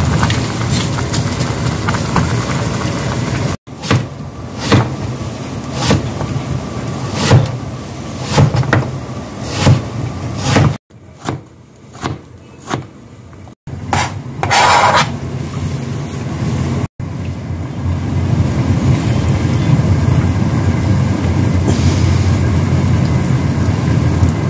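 Kitchen prep sounds over a steady low hum: a wooden spatula stirring braised chicken and rice cakes in a pot, then a kitchen knife slicing cucumber on a plastic cutting board in a few separate strokes, and a knife cutting a block of acorn jelly.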